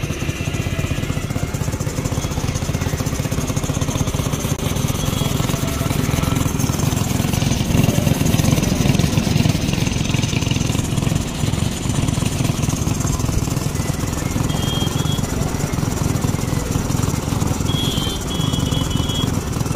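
Tank-mounted piston air compressor running steadily, a low rumble with a fast pulse. A few brief high chirps sound near the end.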